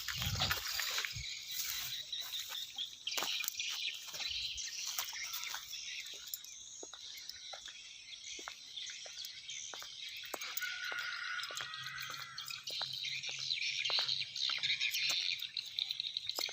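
Swiftlet calls: continuous high-pitched chirping and twittering, with many short sharp clicks scattered through it.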